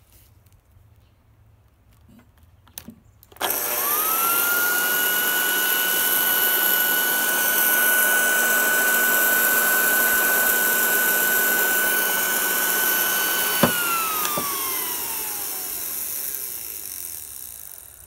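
Vintage Hoover 5450 floor polisher's electric motor and twin bristle brushes switched on about three seconds in, quickly spinning up to a steady high whine. About ten seconds later it is switched off with a click and the whine falls in pitch as the brushes wind down and stop.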